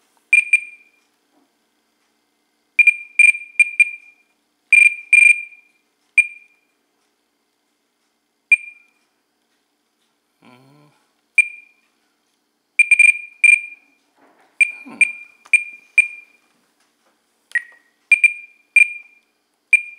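Spektrum RC transmitter beeping as its menu is scrolled and selected: short high beeps, singly and in quick runs of two to four, with gaps of up to about two seconds between. A couple of lower-pitched beeps come in the second half.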